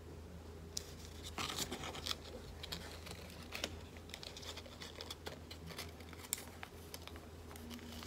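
A small sheet of paper being folded and tucked by hand: faint rustling and creasing with scattered sharp little crackles, over a low steady hum.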